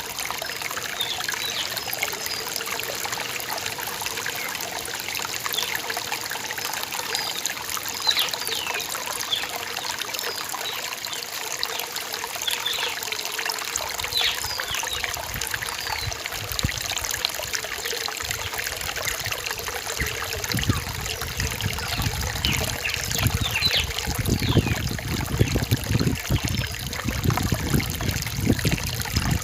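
Rain-forest stream water trickling and splashing steadily. In the last third a deeper, irregular rumble of water joins in.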